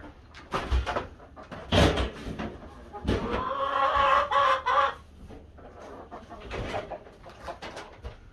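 Chickens clucking, with a longer drawn-out call lasting about two seconds, beginning about three seconds in, and a few sharp knocks early on.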